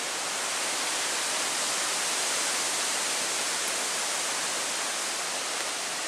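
Steady, even hiss, strongest in the high range, with no rhythm or pitch.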